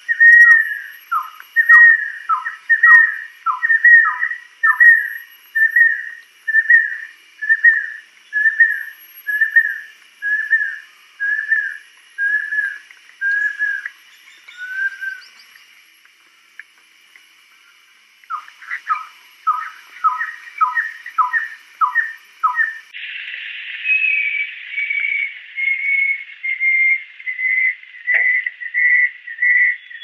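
Banded kingfisher whistling a long series of slurred notes. The first notes come in quick pairs, then single notes that weaken and stop; the song starts again, and near the end a steady run of short whistles grows louder.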